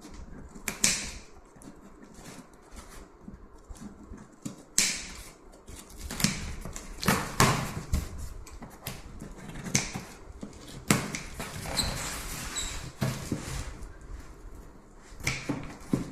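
A cardboard parcel being handled and opened by hand: rustling, tearing and knocking of the packaging in irregular sharp bursts, with a longer stretch of tearing or crinkling about two-thirds of the way through.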